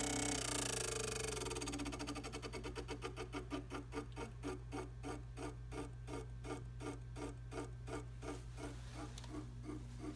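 Tacx Neo Smart direct-drive trainer spinning down: a fading whine, then a rhythmic clicking that steadily slows to about three clicks a second, over a steady low hum.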